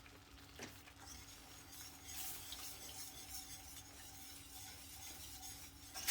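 A utensil faintly stirring and scraping in a saucepan as milk is worked into a thick flour-and-butter roux, with a light sizzle from the hot pan and a few soft clicks of the utensil against the pan.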